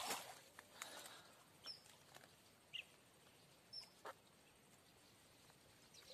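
Near silence, with faint scattered clicks and rustles of a fishing net being handled as tilapia are picked out of its mesh, and a few brief high chirps.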